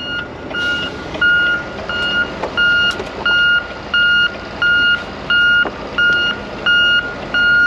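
Back-up alarm beeping steadily at one pitch, about one and a half beeps a second, over the low running noise of a vehicle engine.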